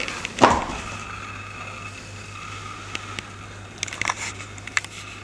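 A person falls to the floor with a single loud thump about half a second in. After it comes a steady low electrical hum, with a few faint clicks and rustles of movement.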